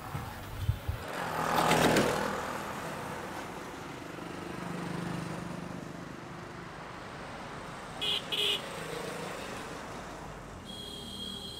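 Street traffic ambience: a vehicle passes about two seconds in and another, softer, a few seconds later. Two short high beeps sound about eight seconds in.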